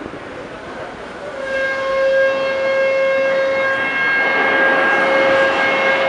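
Long, steady blasting warning horn, one pitch with overtones, starting about a second and a half in and sounding for several seconds with a short dip near the middle, over street traffic noise: the construction site's warning signal before a controlled dynamite blast.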